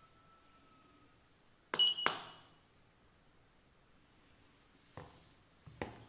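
Buttons pressed on a YM500 washing-machine control panel: about two seconds in, a sharp click with a short high electronic beep from the controller, then another click, and two lighter clicks near the end.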